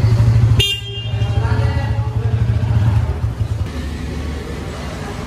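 Bajaj Pulsar N160's single-cylinder engine running at idle with a steady low pulsing note. A brief sharp high tone comes about half a second in, and the engine note drops lower and quieter about two-thirds of the way through.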